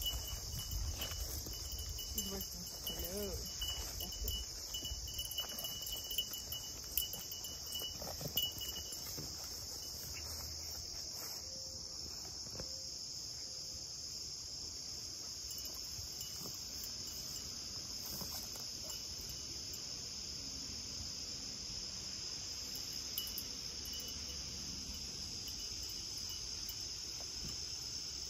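Steady, high-pitched chorus of late-summer field insects. For the first several seconds there is also irregular rustling and footfalls through tall grass and weeds.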